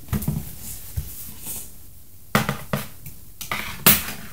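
Scissors snipping through the fasteners that hold a toy horse to its cardboard packaging: several sharp snips at irregular intervals, with handling rustle between them.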